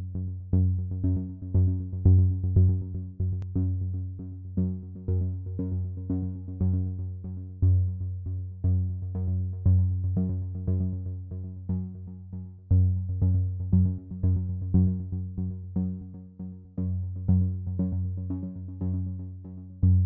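Electronic background music: short, evenly repeated synthesizer notes over a steady bass.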